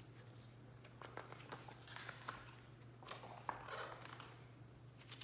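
Faint rustling and small taps of a hardcover picture book being handled and its pages turned, over a low steady hum.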